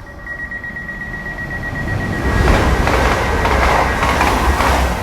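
Heathrow Express Class 332 electric train running through the station: a steady high tone, then the rush and rumble of the train growing loud about two seconds in.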